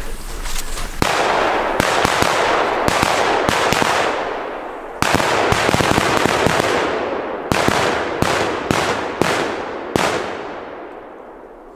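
Ground firework battery firing: a dense run of sharp cracks and bangs over a continuous crackling hiss. It eases off about four seconds in, starts again loudly at about five seconds, then gives a few spaced sharp bangs and fades out near the end.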